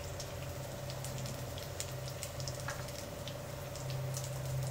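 Hot mustard oil sizzling softly in a kadhai on a gas stove, with scattered small crackles over a steady low hum and a couple of light clicks.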